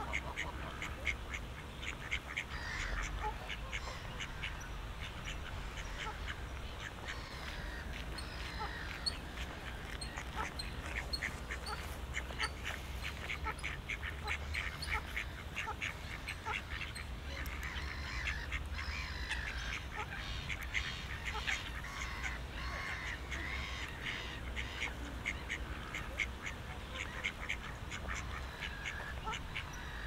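Ducks quacking on and off, mixed with many short chirps of small birds, over a steady low rumble.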